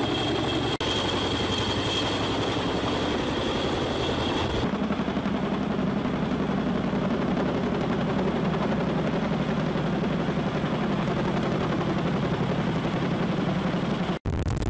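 CH-47 Chinook tandem-rotor helicopter flying overhead, rotors and turbine engines running steadily with a fast low rotor beat. A high whine heard at first drops away abruptly about five seconds in, and the sound cuts out for an instant near the end.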